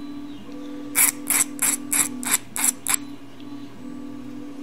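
A small hand file scraping the outer edge of a brass valve collar (washer) to chamfer it: about seven quick strokes, roughly three a second, starting about a second in and stopping near the three-second mark. A faint steady hum runs underneath.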